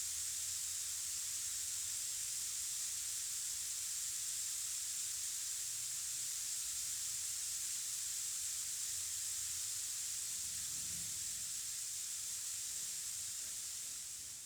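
Large handmade rainstick with star-shaped beads, turned over so the beads cascade down inside it, making a steady soft rain-like hiss that starts to thin out near the end as the beads run out.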